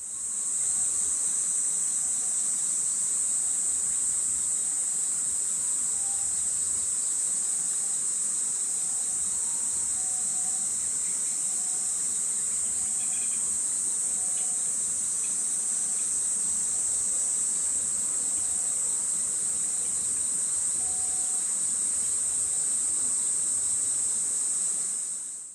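A steady, high-pitched chorus of insects, unbroken and unchanging in pitch.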